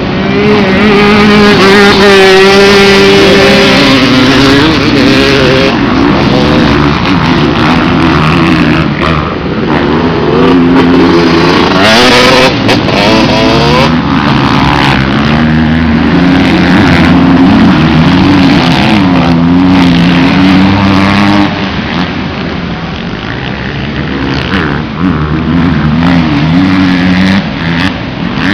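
Several motocross bikes revving hard and easing off as they ride and jump, their engine notes overlapping and rising and falling in pitch. The engines are a little quieter after about two-thirds of the way through.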